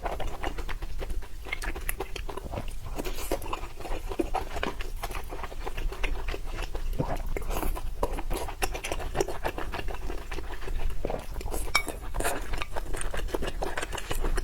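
A person eating close to the microphone: chewing with many small wet clicks and crunches, and utensils clinking against dishes.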